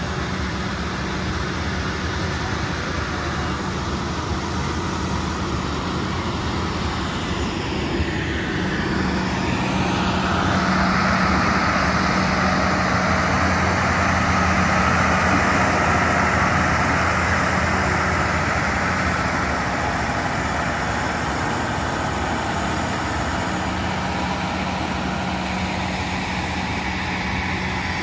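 Cog railway locomotive running while it stands at the station: a steady low hum under a broad hiss, which swells and grows louder about a third of the way in before easing again.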